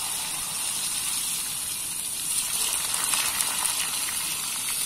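Hot cooking oil in a wok over a portable gas stove: a steady hiss, with crackling that picks up about halfway through.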